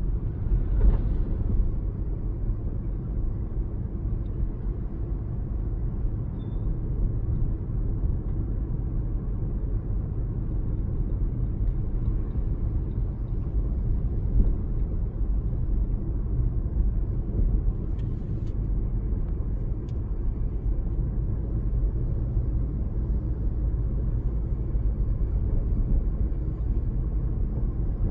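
Steady low rumble of a car driving along a road, engine and tyre noise, with a single brief click about eighteen seconds in.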